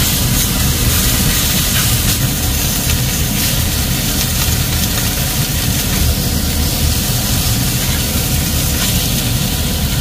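Slices of pork neck sizzling steadily in a hot frying pan, with a low steady rumble underneath and a few light clicks of tongs against the pan.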